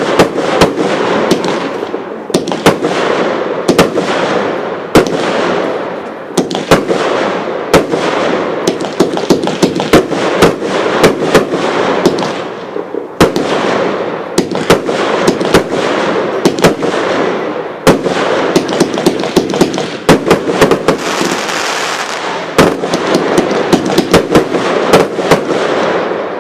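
VuurwerkVisie High Calibre firework cake firing a rapid, unbroken run of shots: sharp bangs from launches and bursts over a steady hiss, a fresh swell of shots about every second and a half, dying down at the very end as the cake finishes.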